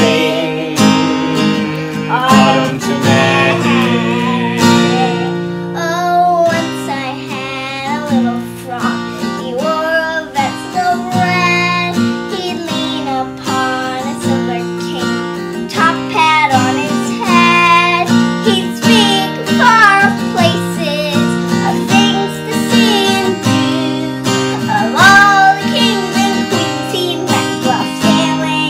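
A young girl and a man singing a folk song together to a strummed acoustic guitar. The guitar keeps up a steady strum throughout, with the sung melody over it.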